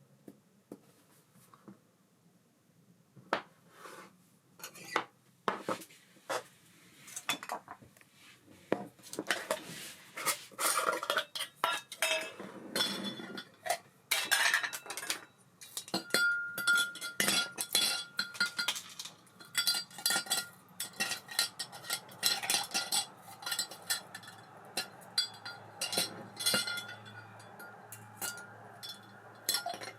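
Small metal parts and tools of an Ambassadeur 5500C baitcasting reel clinking and clicking as the reel is worked on by hand. A steady tone joins about halfway through under the continuing clicks.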